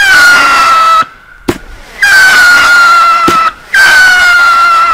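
Whistling fireworks shooting up one after another: three long, shrill whistles, each falling slightly in pitch, with a couple of short sharp pops between them.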